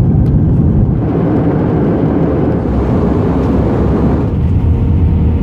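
Loud, steady low rumble of jet airliner engines.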